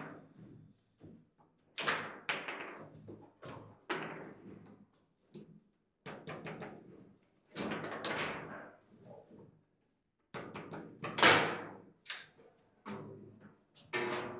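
Table football game in play: the ball and the plastic players knock and clack, and the rods bang against the table, in irregular bursts of sharp hits. The loudest bang comes about eleven seconds in.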